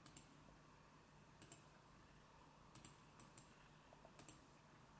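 Faint computer mouse-button clicks, several times and mostly in quick pairs like double-clicks, over near-silent room tone.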